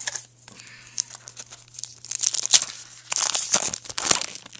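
A trading card pack's wrapper being torn open and crinkled: crackly rustling and tearing that grows louder about two seconds in.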